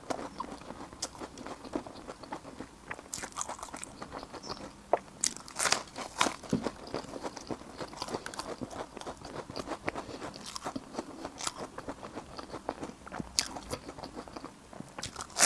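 Close-miked eating: irregular crunchy bites and chewing of food, with a louder run of crunches about five to six seconds in.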